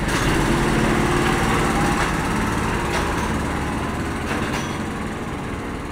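Small go-kart engines idling steadily, easing slightly quieter toward the end.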